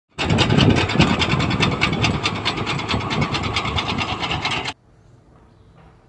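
Potato digger at work in the soil: a steady mechanical clatter, rattling about six times a second over engine noise. It cuts off suddenly about three-quarters of the way through.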